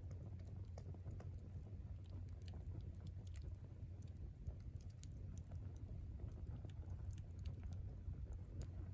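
Wood campfire crackling: faint, irregular sharp little pops and snaps over a steady low rumble.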